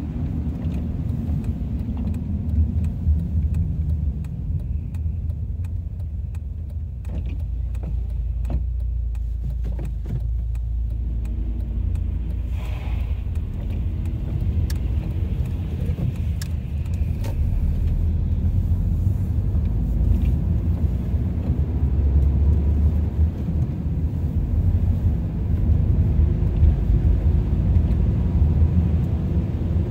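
Car driving, heard from inside the cabin: a steady low rumble of road and engine noise, with a few faint ticks about seven to ten seconds in.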